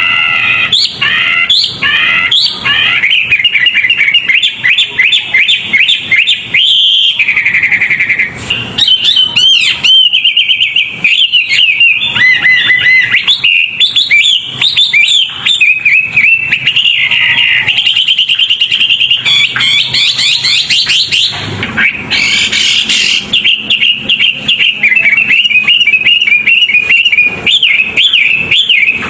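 A songbird singing a fast, unbroken stream of chirps, trills and whistled notes, with a few longer held whistles in between. This is masteran song played to caged songbirds so that they learn it.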